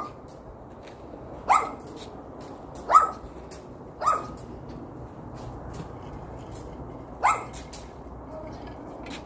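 Small yorkiepoo dog barking: four short, sharp barks, each rising quickly in pitch, with a longer pause before the last one.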